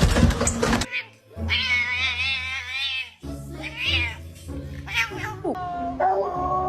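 An animal's long, wavering cry, followed by two shorter cries, over background music. A brief noisy clatter comes in the first second.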